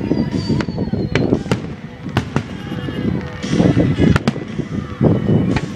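Fireworks aerial shells bursting overhead: about ten sharp bangs, irregularly spaced and sometimes in quick pairs, over a continuous rumble.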